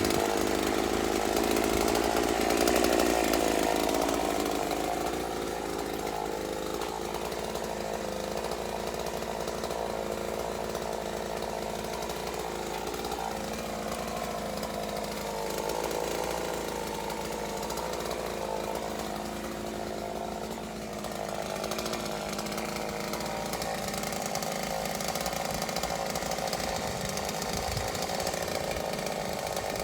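Chainsaw running steadily, its pitch wavering slightly up and down.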